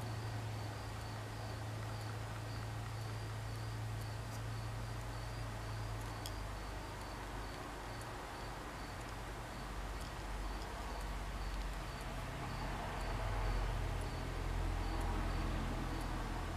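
A cricket chirping steadily, about two high-pitched chirps a second, over a low background rumble, with a few faint clicks.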